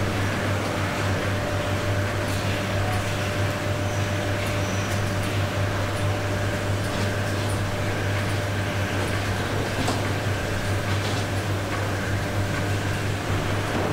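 Steady machinery drone of a poultry processing plant: a constant low hum with a thin steady whine above it, and a few scattered knocks and clinks of metal.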